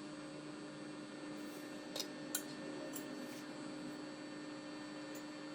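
Beaten egg and minced pork sizzling in hot oil in a frying pan: a steady hiss with two small pops about two seconds in, over a low steady hum.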